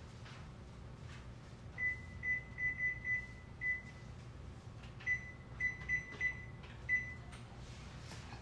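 Short electronic beeps at one high pitch as buttons are pressed to set a digital timer: a quick run of about seven beeps, a pause, then about five more.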